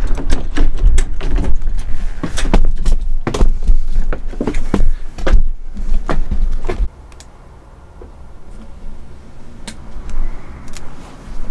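Knocks and footsteps of someone climbing into and walking through a school bus, over a heavy low rumble. About seven seconds in, the noise drops suddenly to a quieter, steady cabin hum with a few faint clicks.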